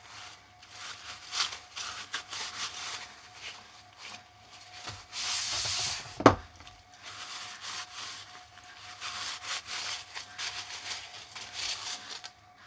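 Repeated rubbing strokes as sanding dust is cleaned off cut-down socket holders, with one sharp knock about halfway through.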